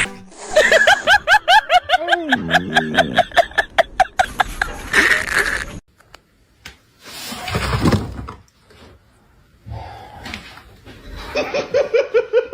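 A person laughing in a rapid run of high-pitched bursts, with a second, lower voice briefly joining; a short noisy clatter about eight seconds in, then more laughter near the end.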